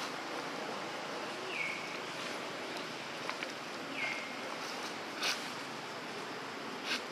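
Outdoor ambience: a steady hiss of background noise, with a short high call that falls and then levels off, repeating about every two and a half seconds. Two sharp clicks come in the second half.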